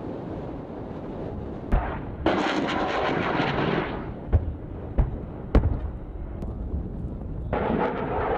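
Weapons fire during a helicopter attack run: four sharp bangs, three of them close together in the middle, over a steady low rumble. Two stretches of harsh hissing noise come about two seconds in and near the end.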